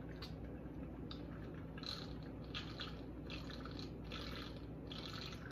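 A person drinking from a water bottle: a series of soft gulps and swallows, about half a dozen, starting about two seconds in.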